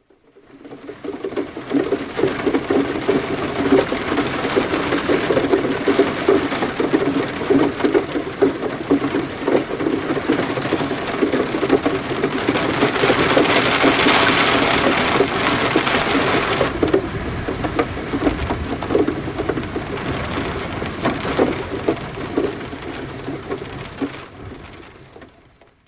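Rain pattering on a window pane: a dense patter of drops that fades in, grows heavier and brighter about halfway through, eases off a few seconds later and fades out near the end.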